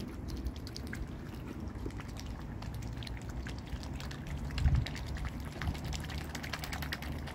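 Mute swans dabbling at the water surface, their bills scooping up floating feed pellets in a constant patter of small wet clicks and splashes. A brief low thump comes about two thirds of the way through.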